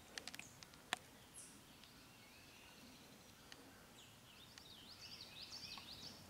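Quiet woodland ambience: a songbird sings a rapid series of chirps over the last two seconds or so, after a few small sharp clicks in the first second.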